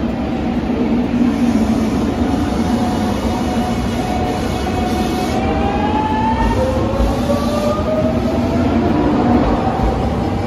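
A train running and pulling away, with a motor whine that rises steadily in pitch through the second half over a continuous rumble.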